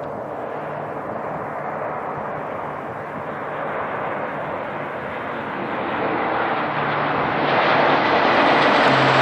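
Low-flying military aircraft approaching, its engine rumble growing steadily louder and sharper, swelling most about two-thirds of the way in.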